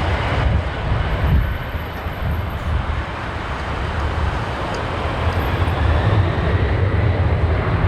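Boeing 747-400 freighter jet engines giving a steady low rumble, with gusty wind noise on the microphone. It eases slightly partway through and builds again near the end.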